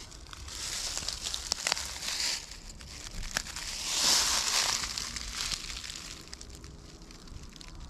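Rustling, crinkling noise in two swells, the louder one about four seconds in, with a few sharp clicks in between.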